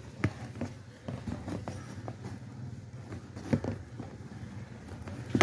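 Hands lacing a high-top sneaker: scattered light taps and rustles of the lace and shoe against the tabletop, with a sharper knock about three and a half seconds in, over a steady low background hum.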